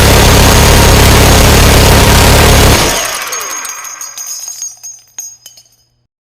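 Minigun firing in a continuous rapid stream that stops abruptly about three seconds in, with a falling whine as it stops. Spent casings then clink and tinkle as they drop, thinning out and fading over the next few seconds.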